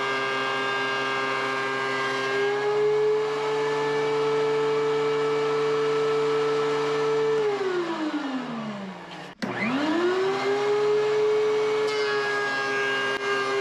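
DEWALT DW735 thickness planer's motor running with a steady whine. About seven seconds in it is switched off and the whine falls in pitch as the cutterhead spins down. Just before it stops it is switched on again and whines quickly back up to speed, and near the end the tone dips slightly and turns rougher.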